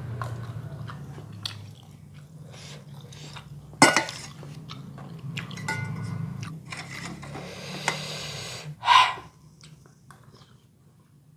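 Close-up mouth sounds of a person eating bakso meatball-and-noodle soup: wet chewing and smacking with scattered clicks, a sharp loud sound about four seconds in and another loud burst about nine seconds in, over a steady low hum.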